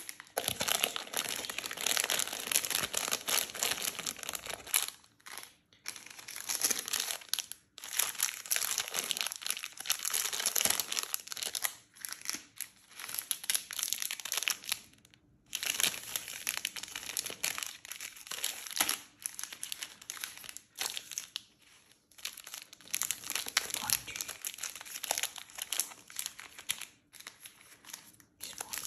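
Plastic and foil candy wrappers crinkling as packaged chocolate bars and sweets are picked up, handled and set down. The crinkling comes in bursts with short pauses between them.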